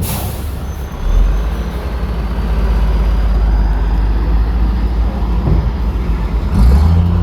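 Heavy diesel engine of earthmoving machinery running steadily under load, with a brief hiss at the start; near the end the engine note grows louder and stronger as it is throttled up.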